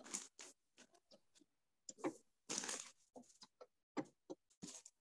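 Handwriting on an interactive touchscreen display: a faint run of short scratchy pen strokes and taps against the screen, uneven in rhythm as each symbol is written.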